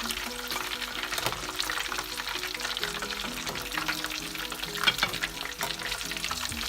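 Breaded chicken strips deep-frying in hot oil: a steady crackling sizzle full of small pops. Soft background music plays underneath.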